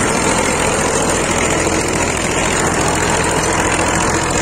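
Massey Ferguson tractor's diesel engine running steadily under load, driving a 36-cutter rotavator that tills the soil behind it.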